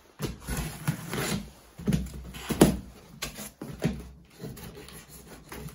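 Scissors cutting through packing tape on a cardboard box, with the cardboard flaps scraping and flexing as they are pulled open: a run of irregular rustles and scrapes, the loudest about two and a half seconds in.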